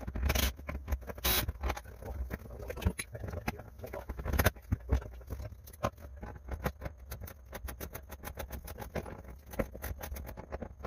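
Ratchet wrench clicking in quick, irregular runs while loosening bolts, with scattered knocks of tools against metal.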